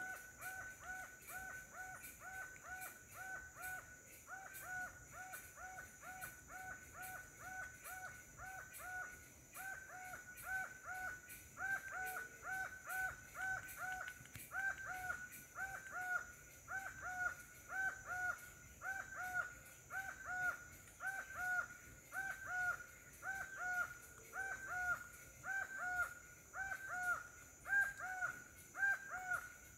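A bird calling a long, even series of short whistled notes, about two a second, growing louder toward the end, over a steady high-pitched hum.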